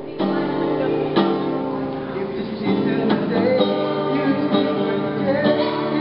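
Acoustic guitar strummed as accompaniment while young male voices sing, holding long notes.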